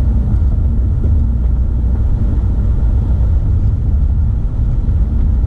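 Steady low rumble of road and engine noise inside a Honda Civic's cabin while driving at road speed.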